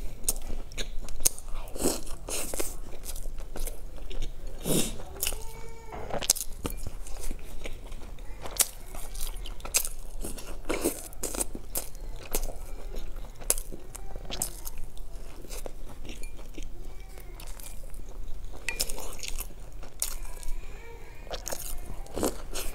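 Crunchy bites and chewing of a crusty bean-topped toast, with sharp crunches every second or so.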